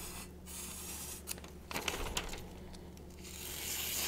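Vosteed 8-inch chef knife slicing down through a hanging sheet of glossy magazine paper: a quiet hissing cut with some paper rustle, growing louder near the end. A paper-slicing sharpness test, where a quiet cut is the sign of a sharp edge.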